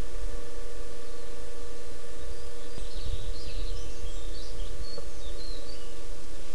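Outdoor ambience: a steady low rumble and a constant hum, with small birds chirping now and then in the middle.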